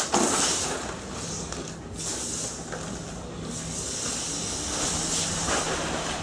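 Water running from a garden hose: a steady hiss, with a louder rush at the start.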